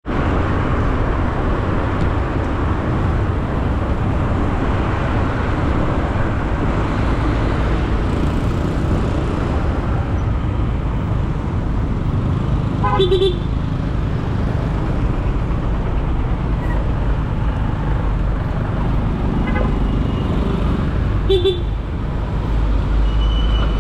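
Steady car engine and road noise in busy traffic, with short car-horn toots near the middle and again near the end.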